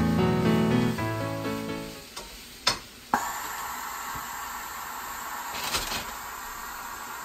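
Background music fades out about two seconds in. After a click, a Cuckoo electric pressure rice cooker starts venting steam with a sudden, steady hiss as the rice finishes cooking.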